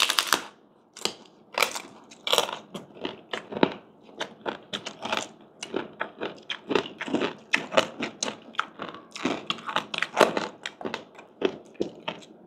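Crunchy fried pork skin being bitten and chewed, with sharp, irregular crunches a few times a second.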